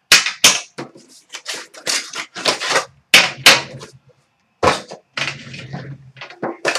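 Handling of a hockey card box's packaging: a series of sharp knocks, taps and scrapes as the black hard case is shaken out of its cardboard outer box and set down on a glass counter, the loudest knocks just after the start and about three seconds in.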